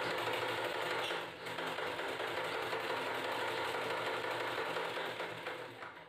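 Black domestic straight-stitch sewing machine running steadily as it topstitches a folded-in fabric edge, easing briefly about a second in, then slowing and stopping near the end.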